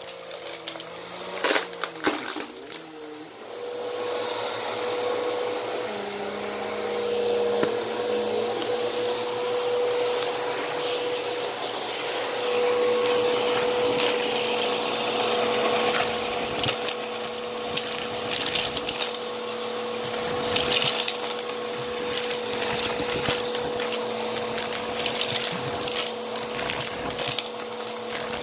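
Bissell PowerForce upright vacuum cleaner: a few clicks, then the motor starts about three seconds in and runs steadily with a steady whine. Scattered clicks and rattles come through as coins are sucked up the hose wand; the pennies make it very loud.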